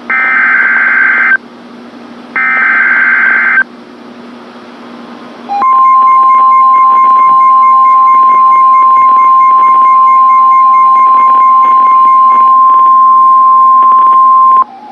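NOAA Weather Radio Emergency Alert System activation: two bursts of SAME header data noise, each about a second long, then about five and a half seconds in the long steady weather radio alert tone, held for about nine seconds until it cuts off near the end. The tone announces that a warning message follows.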